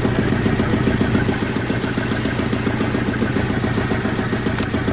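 A fishing boat's engine running steadily with a rapid, even pulse, during net hauling, with a single sharp click near the end.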